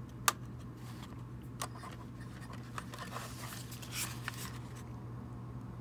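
Small handling sounds of a plastic model tank car and steel tweezers: one sharp click about a quarter second in, a few fainter clicks, and light scratching and rustling as the car is picked up and turned, over a steady low hum.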